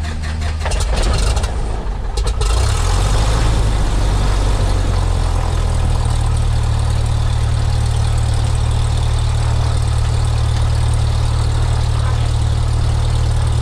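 Cessna 172S's fuel-injected Lycoming four-cylinder engine starting: it fires unevenly for the first couple of seconds, catches, and then settles into a steady idle.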